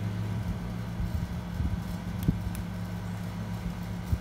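Small metal lock-cylinder parts being handled, giving a couple of light clicks, over a steady low hum.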